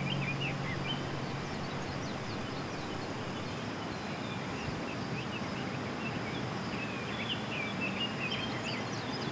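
Outdoor natural ambience: a steady, even hiss with small birds chirping and whistling short notes, a cluster near the start and a busier run near the end, over a faint steady high tone.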